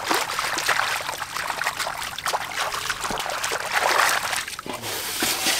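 Hands sloshing and splashing through shallow muddy water while groping in the mud for catfish, with busier spells near the start and about four seconds in.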